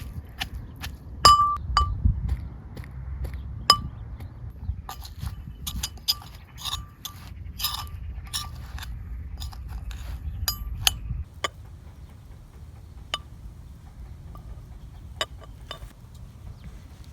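Kitchenware clinking: irregular light taps and clinks of utensils against dishes, each with a short ringing tone. They come thick and fast for most of the stretch over a low rumble, then thin out to a few scattered clinks once the rumble stops.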